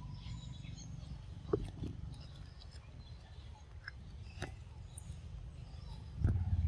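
A pig-tailed macaque biting and chewing at a small cardboard drink carton, with a few scattered sharp clicks and crinkles. A low rumble grows louder near the end.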